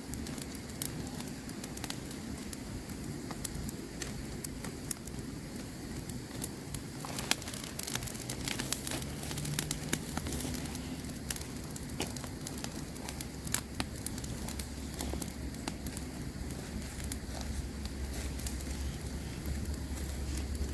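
Campfire burning with irregular sharp crackles and pops over a steady low rumble.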